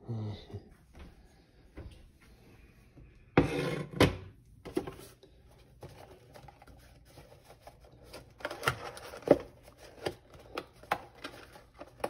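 Kitchen handling noises: two loud clunks about three and a half seconds in, then scattered clicks and clatter as a ceramic mug is set on a glass stovetop and a cardboard tea box is handled.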